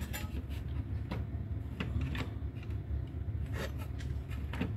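Scattered light clicks and taps of parts and tools being handled on a workbench during the fitting of a transformer in an amplifier, over a steady low hum.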